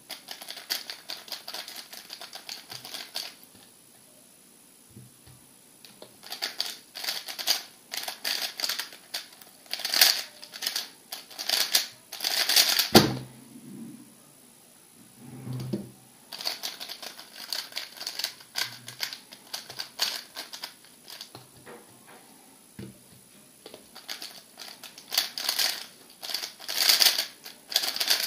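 MoYu RS3 M 2020 magnetic speedcube being turned fast, a dense run of plastic clicking and clacking in bursts of several seconds with short pauses between. A single thump comes about 13 seconds in.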